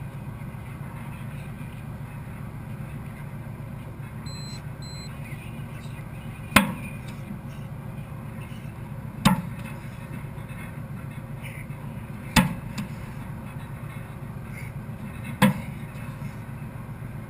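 A heavy 50 kg sandbag dropped to the floor four times, about every three seconds, each landing a sharp thud, over a steady low rumble.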